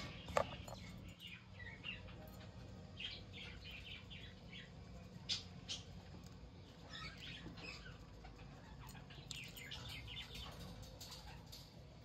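Young budgerigars chirping in scattered clusters of short twitters, with a single sharp click about half a second in.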